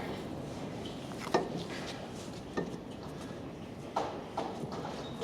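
Metal tools and parts knocking and clinking: four short, sharp knocks spaced about a second apart.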